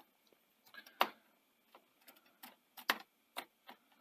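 Scattered small clicks and taps of a hand tool working on a Betamax video recorder's metal deck mechanism while the motor is being unscrewed; the sharpest click comes about a second in, with a few fainter ones later.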